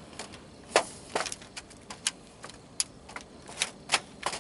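Thin aluminum flashing sheet crackling and popping as it is pressed down and worked up under asphalt shingles: irregular sharp clicks, the loudest about a second in.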